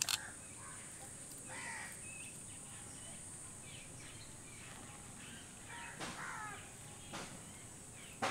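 Crows cawing faintly in the background, a few separate harsh caws about two seconds and six seconds in, over a steady high hiss.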